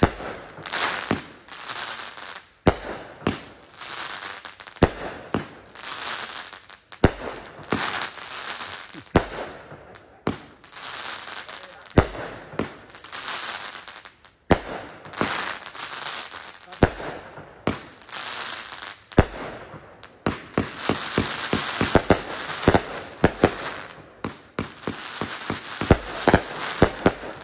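A 500-gram consumer firework cake firing shot after shot, each shot followed by a crackling burst, about one or two a second. Near the end the shots come in a quicker volley.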